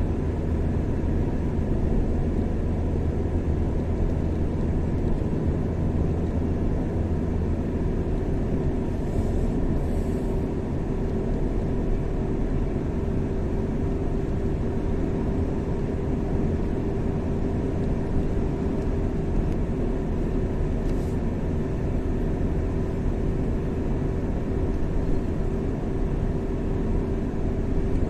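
Steady engine and tyre noise of a car driving along a highway, with a low hum. A faint steady whine comes in about eight seconds in.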